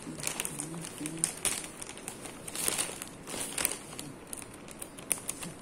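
Thin plastic zip-lock bag crinkling and rustling in irregular bursts as it is held open and handled.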